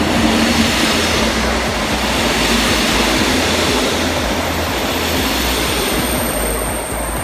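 MÁV-START passenger coaches rolling past at close range, a steady rumble of steel wheels on the rails that eases slightly near the end.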